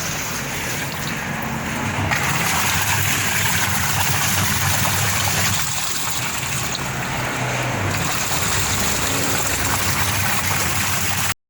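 Water splashing and trickling inside a running LG washing machine over a low motor hum. This is water spraying onto the wash motor, the cause the repairer gives for the burned-out motor, which he fixes by replacing the gearbox. The sound cuts off abruptly near the end.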